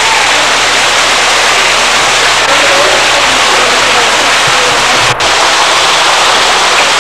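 Loud, steady rushing noise, with a brief dropout about five seconds in.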